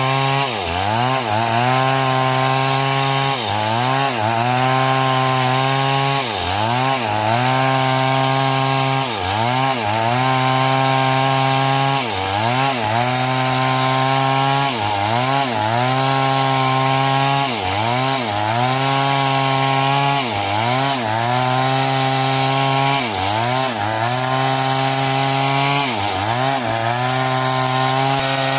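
Chainsaw cutting coconut wood, running at high revs. Its pitch drops briefly and recovers about every two to three seconds as the cut loads the engine.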